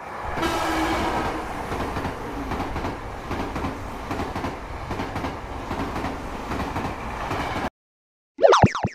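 Train running on the rails, a steady rumble that cuts off suddenly near the end. Then a brief cartoon sound effect with falling pitch.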